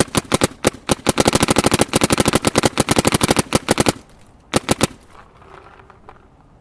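Planet Eclipse Etha 2 electronic paintball marker firing rapidly on compressed air, roughly ten shots a second. The firing stops about four seconds in, followed by a short burst of two or three more shots about half a second later.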